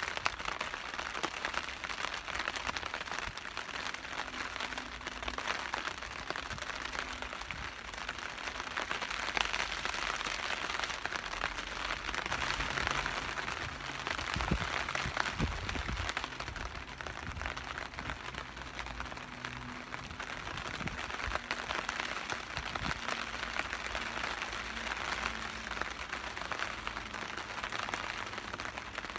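Steady rain on a tarp overhead, with long breaths blown into a smouldering tinder bundle of pine bark and jute, swelling and fading every few seconds as the ember from a charred cotton rope is coaxed toward flame.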